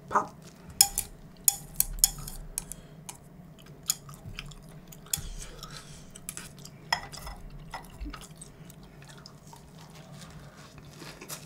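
Metal chopsticks clicking and scraping against a ceramic rice bowl as rice is gathered onto a lettuce leaf, a series of sharp separate clicks. Later come close-miked chewing and mouth sounds as a lettuce-and-rice wrap is eaten.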